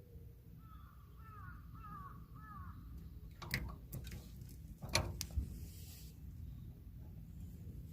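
A bird calling, a quick run of about five short arched calls, followed by a few sharp knocks or clacks about halfway through.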